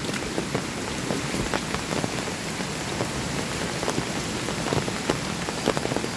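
Heavy rain falling steadily, with many sharp, close drop hits through the steady hiss.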